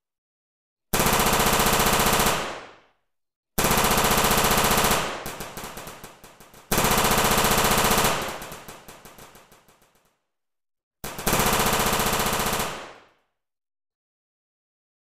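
Dubbed machine-gun fire sound effect: four long bursts of rapid automatic fire, each cutting in suddenly and dying away in a fading tail, with silent gaps between them.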